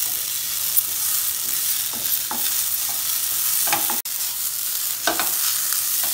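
Grated fresh coconut frying in ghee in a nonstick pan over a low flame: a steady sizzle, with a wooden spatula scraping and stirring through it in several short strokes.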